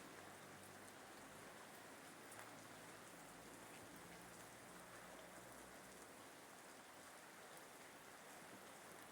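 Rain falling steadily: an even, faint hiss of rain with no breaks.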